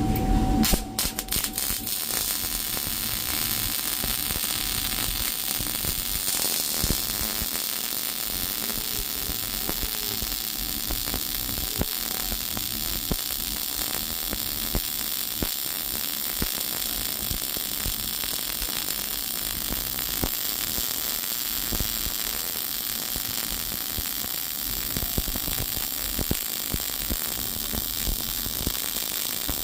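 Electric arc welding: the welding arc crackling steadily and densely, with a few sharp clicks about a second in.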